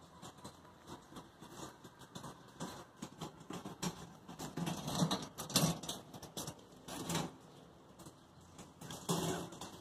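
Irregular rustling, scratching and light tapping, with the loudest cluster in the middle and another near the end.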